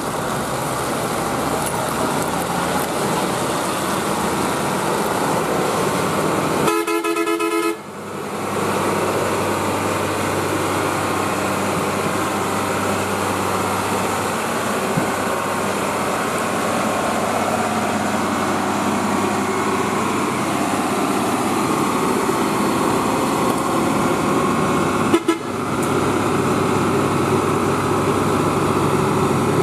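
A heavy Mitsubishi Fuso diesel dump truck's engine runs steadily under load on the climb. A vehicle horn sounds once, for about a second, around seven seconds in.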